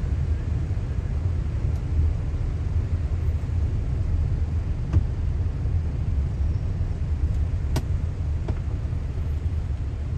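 Steady low rumble of a car's engine and tyres on a wet road, heard from inside the cabin, with an even light hiss over it and three faint clicks in the second half.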